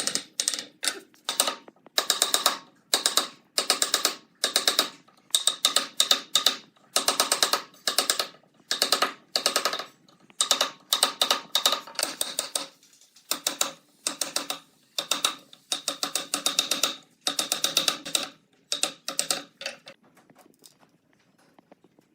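Rhythmic scraping strokes of a hand tool working wood, about two a second, each stroke a rapid rattle of fine ticks; they stop about 20 seconds in.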